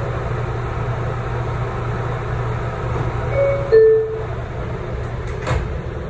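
New York City subway car's steady low hum, then a two-note falling door chime about three and a half seconds in, the signal that the doors are closing. A short knock follows near the end.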